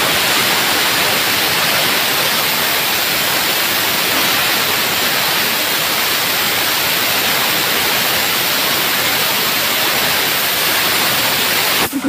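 Compressed air hissing steadily out of an air compressor's receiver tank as the tank pressure falls. Right at the end the hiss gives way to a pulsing hum.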